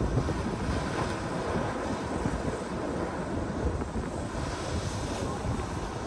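Ocean waves surging and breaking against a coastal rock platform, with wind buffeting the microphone as a steady low rumble.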